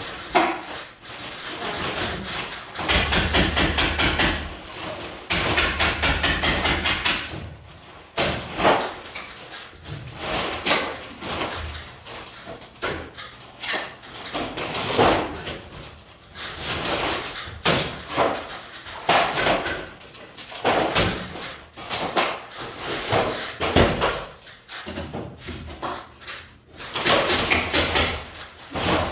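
Hammering and knocking on a wooden ceiling frame during demolition work: irregular knocks and thuds, with two louder stretches of rapid, even rattling about three and five seconds in.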